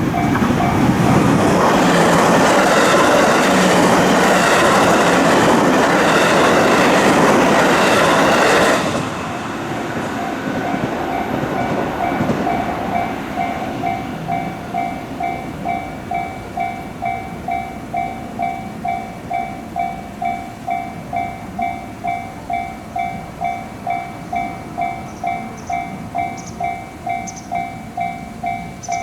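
Japanese level-crossing warning bell ringing its "kan-kan" two-tone ding about twice a second while a train passes loudly over the crossing. The train noise stops abruptly about nine seconds in, and the bell keeps ringing steadily.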